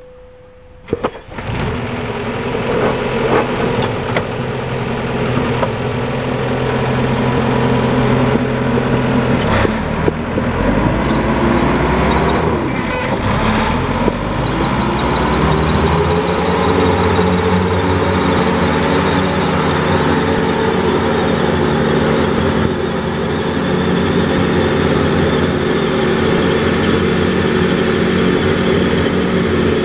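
Jacobsen HR9016 wide-area rotary mower's diesel engine running. It cuts in abruptly about a second in and runs steadily. About ten seconds in the pitch rises and shifts for several seconds, then it settles into a steady run.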